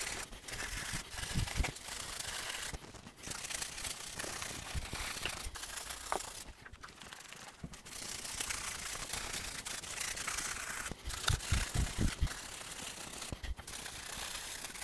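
Stiff wheel brush scrubbing a Volvo B5254T aluminium engine block wet with Prickbort cleaner: a rasping scrub in bursts with short pauses, and a few dull knocks.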